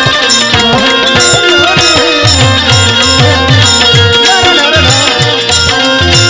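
Instrumental interlude of Bhojpuri folk music: tabla played in a steady rhythm with deep bass strokes, a shaker ticking along, and an electronic keyboard melody over harmonium.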